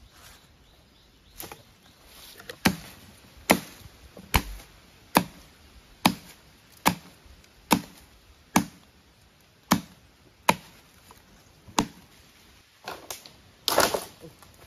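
Machete chopping a dry fallen branch for firewood: about a dozen sharp strikes, roughly one a second, followed near the end by a longer rustling, cracking noise as the wood is handled.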